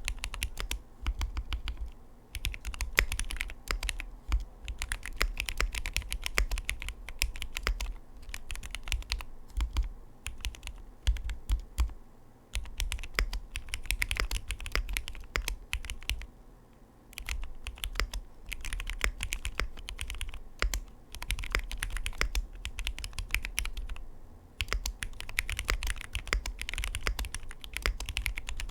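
A custom 60% mechanical keyboard in a Tofu60 case, damped with foam, being typed on fast in continuous runs of key clacks. The runs break off in brief pauses several times.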